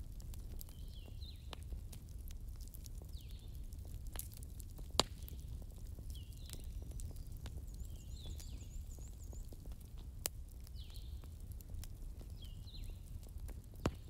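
Wood fire burning with a low steady rumble and scattered crackles, and a sharp pop about five seconds in and another near the end. Short high chirps from some animal recur every couple of seconds in the background.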